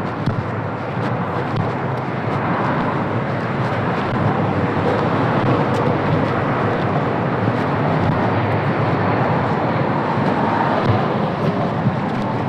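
Street traffic noise: a steady wash of passing vehicles, swelling a little after about two seconds and easing slightly near the end.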